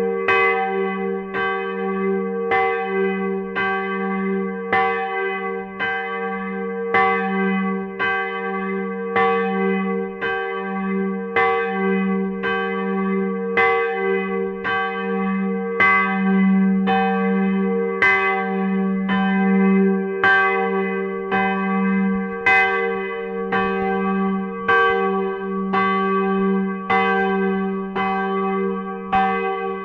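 Swinging church bell cast in Midwolda in 1949 (about 580 kg, strike note G), rung by a crankshaft drive. Its clapper strikes in a steady, even rhythm, each stroke ringing on over a low hum that carries through.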